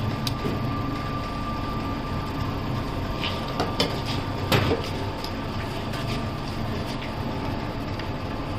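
Steady hum of a hydraulic hose crimping machine running idle, with a few knocks and clicks about halfway through, the loudest knock a little after that.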